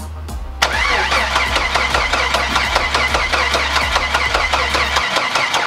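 Freshly rebuilt Jeep 4.0 inline-six engine being started for the first time: it cranks and fires with a rapid, uneven chugging that starts about half a second in and stops abruptly near the end. The crew suspects the ignition timing for the rough start.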